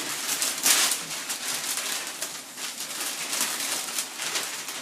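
Wrapping paper being torn and crinkled in irregular rips as a gift is unwrapped, the loudest tear about a second in.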